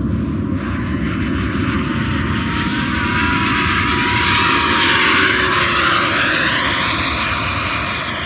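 Freewing Avanti RC jet's 80 mm WeMoTec 11-blade electric ducted fan on a fast pass: a rushing whine that swells to its loudest about five seconds in. Its pitch rises slightly and then drops as the jet goes by, and the sound fades toward the end.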